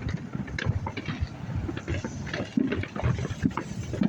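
Distant backyard fireworks going off all around, short pops and bangs at irregular intervals, over a low rumble of wind on the microphone.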